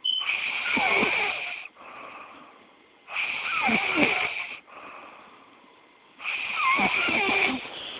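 A sleeping person snoring in a steady rhythm: three loud snores about three seconds apart, each about a second and a half long, with softer breathing between them.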